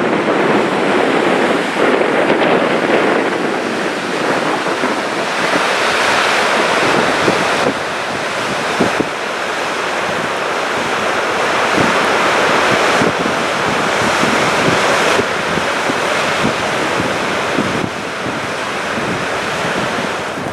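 Steady rush of a large waterfall, with wind buffeting the microphone.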